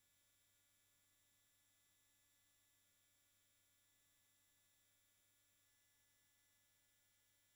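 Near silence: only a faint, steady electronic hum and hiss, with no sound from the scene itself.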